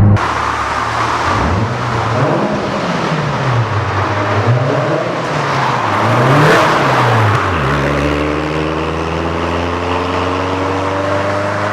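Lotus Elise S2's Rover K-series four-cylinder engine revving up and down several times, loudest about six and a half seconds in. After about eight seconds its pitch climbs steadily as the car accelerates.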